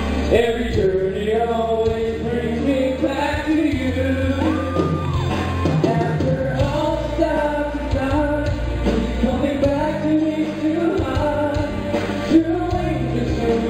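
Men singing live into handheld microphones over a backing accompaniment.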